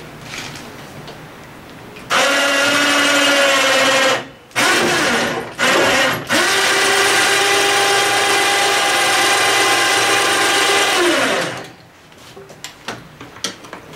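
A small electric power tool runs in trigger bursts with a steady whine. It starts about two seconds in, cuts out twice briefly and restarts at once, runs at a higher pitch after the second restart, and winds down near the end.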